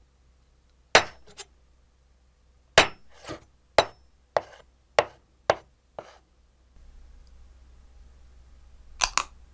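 A series of about nine sharp, separate knocks, several spaced about half a second apart, then a quick double knock near the end.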